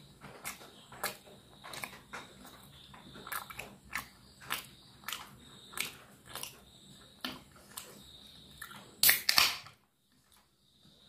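Close-miked chewing of a mouthful of spicy chicken leg meat, with short wet smacking clicks about one to two a second. A louder clatter comes about nine seconds in.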